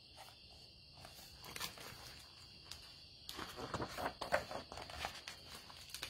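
Faint, steady high chirring of insects, with soft rustling and clicks from about halfway in as the pages of a picture book are handled and turned.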